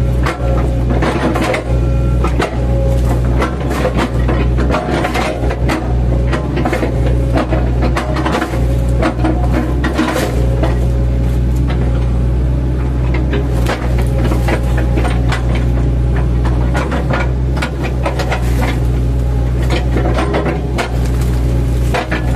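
Mini excavator's diesel engine running steadily under load, with repeated knocks and crunching as its bucket chops into oil palm trunks.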